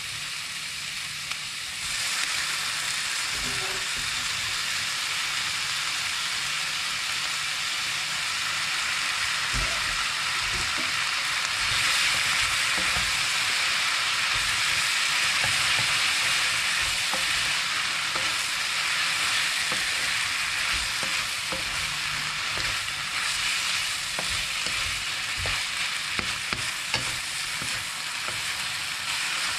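Instant noodles sizzling as they are stir-fried in a hot pan, stirred with scattered scrapes and clicks. The sizzle gets louder about two seconds in, when the noodles go in, and is loudest in the middle.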